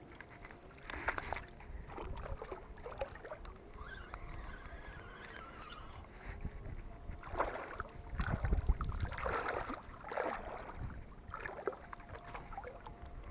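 Handling noise of a fishing rod and spinning reel: irregular rustles, knocks and clicks, loudest about two-thirds of the way through.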